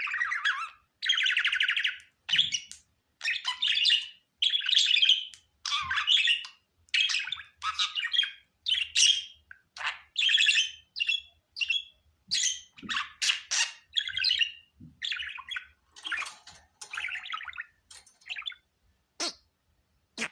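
Budgerigar calls: a rapid run of short chirps and squawks with brief gaps between them, a few longer, buzzy calls near the start.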